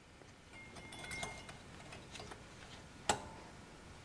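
Light metallic clicks and rattles of a thin steel brake-pad clip being handled and pressed into the caliper bracket, with one sharper click about three seconds in as it seats.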